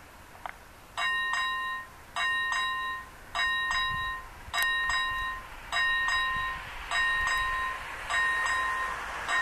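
Level-crossing warning bell starting about a second in, a ringing double strike repeating roughly every second, the warning that a train is approaching; a single click comes just before the first ring.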